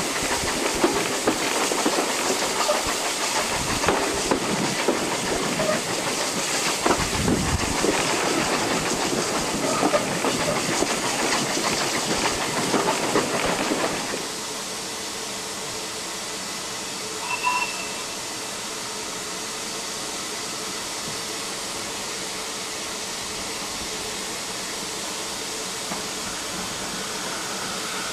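A steam-hauled train heard from an open carriage window: wheels clattering over the rail joints, with the rush of air passing by. About halfway through this gives way to a quieter, steady hiss of steam from LSWR T9 class locomotive No. 120.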